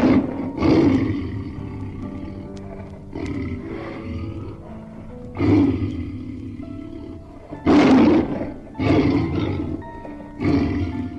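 A series of loud animal calls, about seven, each swelling and then fading, the loudest at the very start and about eight seconds in. Background music with steady held notes plays underneath.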